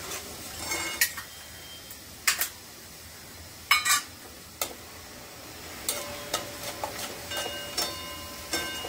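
A steel spoon stirring sugar syrup in an aluminium pan, clinking sharply against the metal about nine times, over a faint steady simmering hiss. The last few clinks leave the pan ringing briefly.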